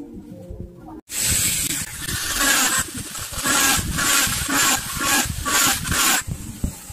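A small corded handheld tool piercing holes along the printed outline on a PVC pipe: a loud hissing rasp that pulses about two to three times a second, cutting in suddenly about a second in and stopping shortly before the end.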